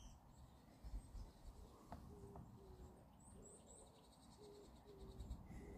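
Near silence: faint outdoor ambience, with three quick, faint, high bird chirps a little past the middle.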